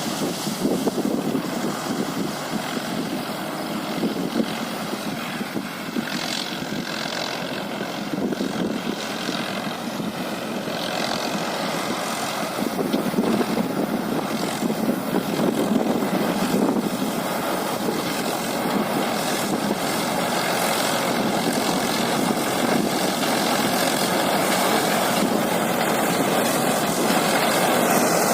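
Tractor-mounted Vikas 315 mini combine harvester, driven by a Swaraj 963 tractor, running steadily at work: a dense mechanical din with faint steady whines above it, growing somewhat louder in the second half.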